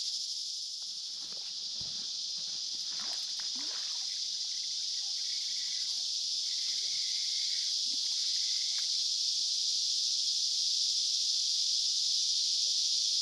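Insects buzzing loudly in a steady, high-pitched drone, with a few faint brief knocks in the first few seconds.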